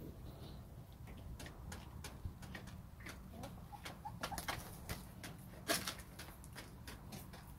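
Backyard hens pecking at wood-chip litter, a scatter of sharp ticks with one louder peck a little past the middle, and a few soft, short hen calls about halfway through.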